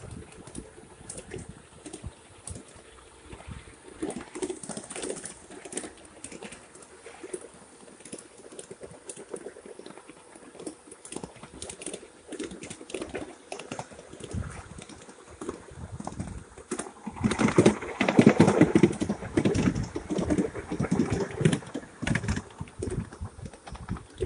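Wheels of a ride-on 7.5-inch gauge switcher clicking irregularly over the rail joints as it rolls along the track. A louder stretch of rattling comes about three-quarters of the way through.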